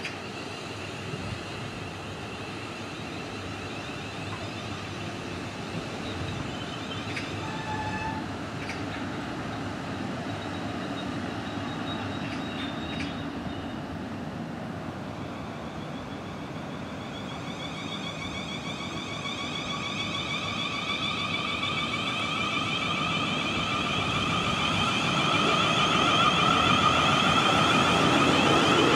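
Electric multiple-unit train, its traction motors whining in several tones that slowly rise in pitch and grow louder through the second half, over a steady rail rumble. A few brief high tones sound in the first half.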